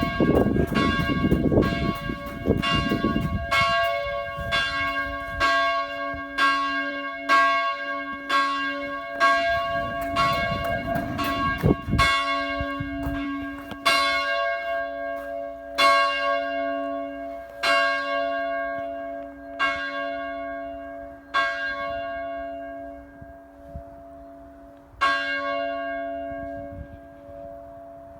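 Church bell ringing: strokes come quickly and evenly at first, then slow to about one every two seconds, and after a last stroke near the end the hum of the bell fades away.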